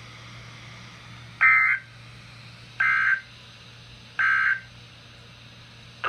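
NOAA Weather Radio receiver's speaker sounding the Emergency Alert System end-of-message code: three short bursts of warbling digital data tones, about a second and a half apart, over a faint steady hum. The bursts mark the end of the alert broadcast.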